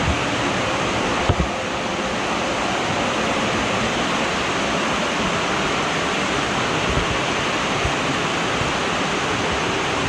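Steady rush of water pouring over rocks in a mountain stream below a waterfall, with a single brief knock about a second in.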